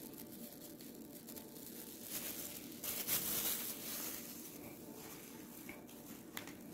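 Thin plastic food-prep glove and plastic cups rustling and crinkling as they are handled, in a few soft bursts around the middle, with a light click near the end.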